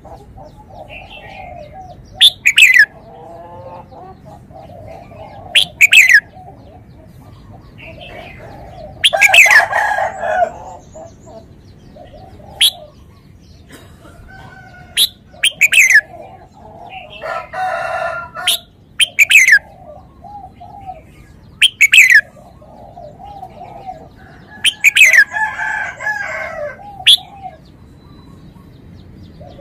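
Birds calling: loud, sharp downward-sweeping notes repeat every two to four seconds over softer, continuous warbling. A few longer, fuller calls come in about a third of the way through, just past the middle and near the end. Most likely a caged red-whiskered bulbul (Pycnonotus jocosus) singing and calling.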